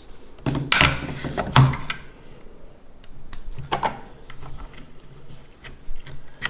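Handling clatter of a NiMH battery pack being fitted into a 1/14 RC excavator: several sharp clicks and knocks, the loudest in the first two seconds, then lighter ticks.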